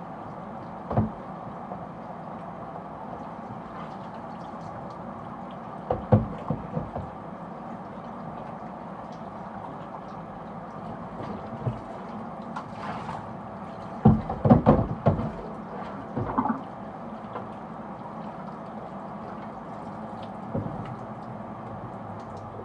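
Plastic humidifier parts being handled and set down: scattered knocks and clatters, the busiest bunch a little past the middle, over a steady low hum.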